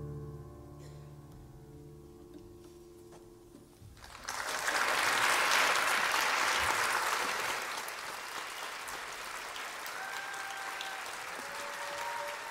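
The last chord of a cello and piano piece rings and fades away, then about four seconds in an audience breaks into applause that carries on steadily.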